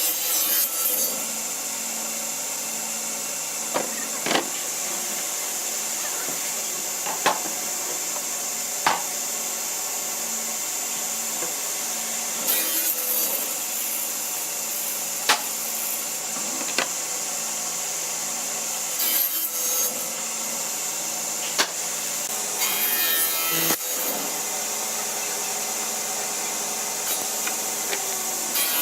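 A woodworking machine running steadily as wood is cut or worked, with scattered sharp knocks and a few short hissy stretches.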